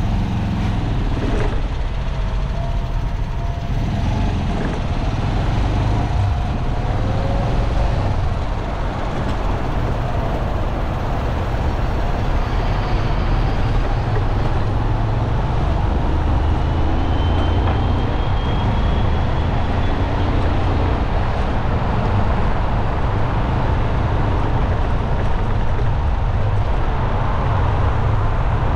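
Steady city road traffic: a continuous low rumble of engines and tyres from cars, trucks and buses. Faint thin whines come and go, including a rising high one about two-thirds of the way through.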